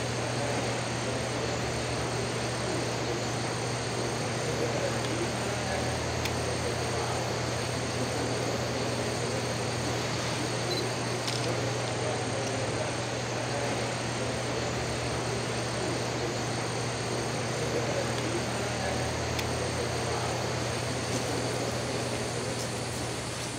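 A steady low mechanical hum with several constant high-pitched whining tones above it.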